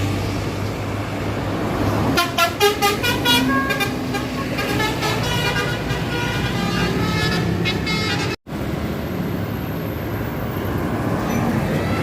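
Tour bus basuri musical horn playing a run of short notes at changing pitches, then a longer phrase of held tones, over the bus's engine and road noise. The sound drops out for a split second shortly after the horn stops.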